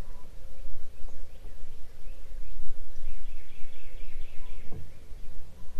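Wind buffeting the microphone in uneven gusts, with a bird calling in a quick run of repeated chirps from about three seconds in until about a second and a half later.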